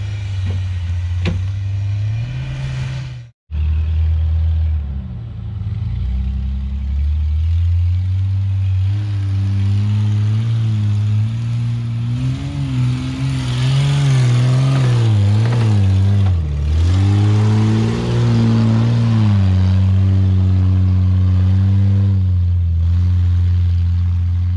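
4x4 engines working hard as the vehicles climb a steep dirt slope, the revs swinging up and down in the middle as the driver works the throttle. The sound drops out briefly about three seconds in.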